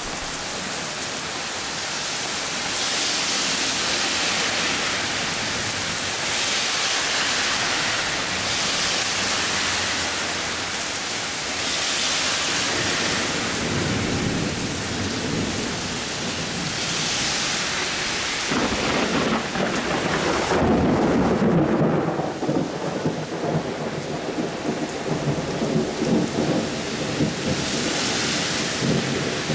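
Heavy downpour of rain, its hiss swelling and easing several times. Thunder rumbles in past the middle, loudest a few seconds after it starts, with the rain going on throughout.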